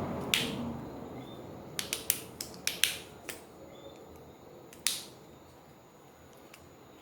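Sharp plastic clicks and snaps as the plastic inner cover of a Samsung Galaxy A70 is pried off, its clips letting go: one near the start, a quick run of about six around two to three seconds in, and a louder snap near five seconds.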